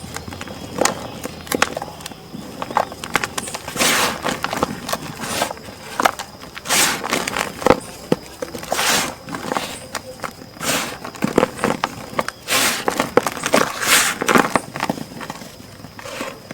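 Wet, gritty cement being crumbled and crushed: repeated bursts of crunching and crackling, about a second each, with scattered sharp clicks of pieces breaking between them.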